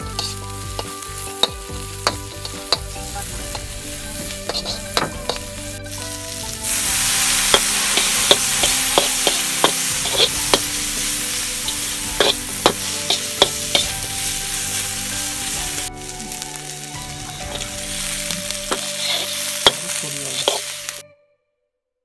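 Curry paste, chilies and herbs sizzling in a hot metal wok while a slotted metal spatula stirs and scrapes, with frequent sharp clinks of the spatula against the pan. The sizzle gets louder about seven seconds in and cuts off suddenly just before the end.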